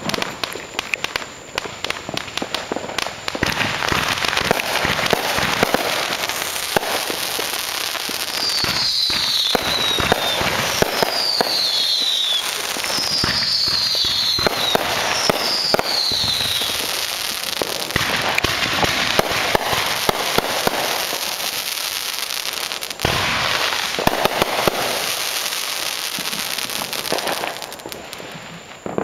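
Dense, continuous crackling and popping from many fireworks and firecrackers going off at once, with sharper bangs scattered throughout. In the middle come four high whistles, each falling in pitch, about two seconds apart. The din dies down near the end.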